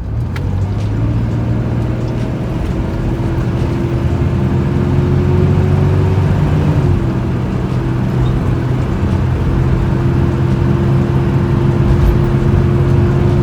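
Toyota 4Runner's 3.4-litre V6 running while the truck drives, a steady engine drone over road rumble; the pitch dips slightly about six or seven seconds in, then holds.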